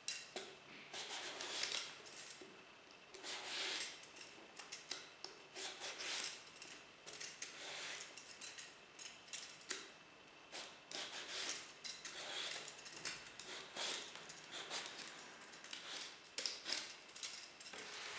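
Hand vegetable peeler scraping the skin off a round eggplant in a run of short, irregular strokes.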